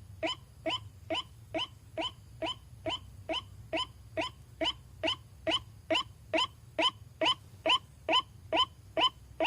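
White-breasted waterhen (ruak-ruak) lure call: a fast, even run of short rising notes, about two and a half a second, with no break.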